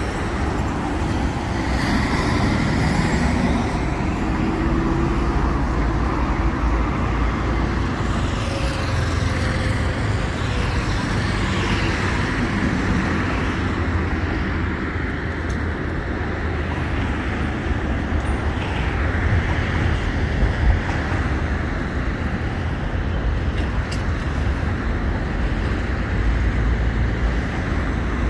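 Steady road traffic passing: cars and other motor vehicles making an even rumble, with single vehicles swelling now and then as they go by.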